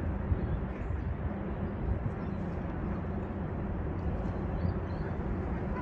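Steady outdoor ambience dominated by a low rumble.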